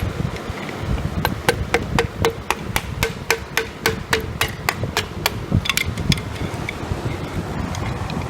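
Rapid, even hammer blows, about five a second for some four seconds, each with a short ring, then a few lighter taps: a piston most likely being driven out of its cylinder bore in a Pontiac 389 V8 block.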